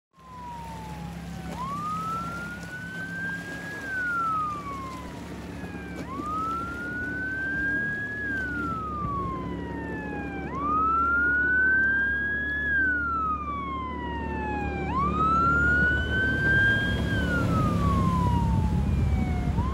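Patrol boat's siren on a wail cycle, rising and then falling, repeating about every four and a half seconds, over a steady low drone.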